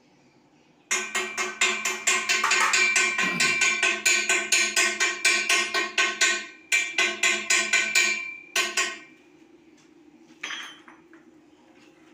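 Rapid hammer blows on a steel pipe, several a second, the pipe ringing with a steady metallic pitch under the strikes. They start about a second in, pause briefly twice, and stop near nine seconds; one short knock follows a little later.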